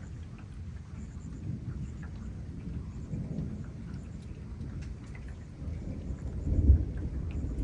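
Thunder rumbling low and rolling, swelling to a louder peak about two-thirds of the way through, over light rain dripping.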